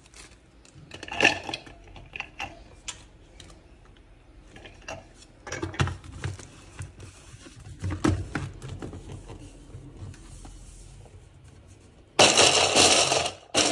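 Walnuts being tipped by hand from a plastic bag into the plastic bowl of an electric mini chopper, with bag rustling and light clatters. Near the end the chopper's motor runs in a loud burst of about a second and a half, then a brief second pulse, chopping the walnuts.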